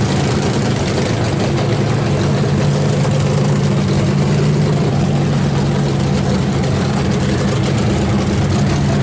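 Engine idling steadily, a low even drone that holds the same pitch throughout.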